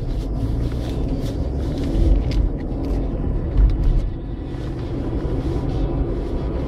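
Car driving on the road, heard from inside the cabin: a steady low rumble of engine and tyre noise.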